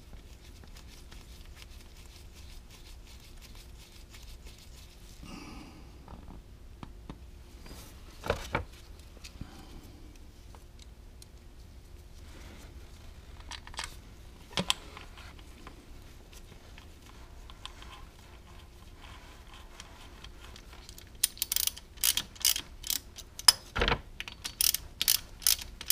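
Quiet handling of small bolts being threaded in by hand, with a few isolated clicks and a knock. Near the end, a hand socket ratchet clicks in quick strokes as the clutch filter cover bolts are run in.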